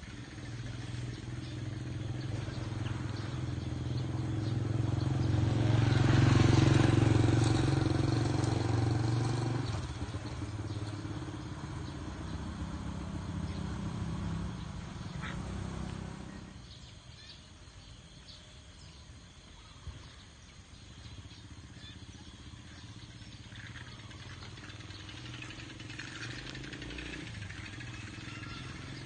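A motor vehicle engine running, growing louder to a peak about six to seven seconds in, then dropping away around sixteen seconds and leaving a quieter background.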